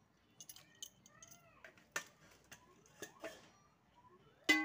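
A metal spoon clinking and knocking against a metal cooking pot while chicken masala is spooned onto the rice, with one loud ringing clang near the end. A few short squeaky calls that rise and fall in pitch come between the knocks.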